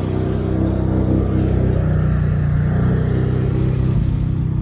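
A vehicle engine running steadily, a loud low hum that swells slightly through the middle.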